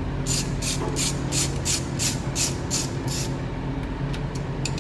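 Ratchet wrench clicking in a quick, even run of about eleven short rasping strokes, some three or four a second, as bolts on the cam caps of a Honda B-series cylinder head are worked; it stops about two-thirds through, with a few light clicks near the end. A steady low hum sits underneath.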